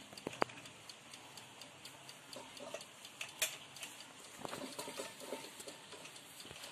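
Scattered light taps and scrapes as ground coconut and cardamom are knocked out of a grinder jar into a glass bowl of flour and stirred in with a wooden spatula.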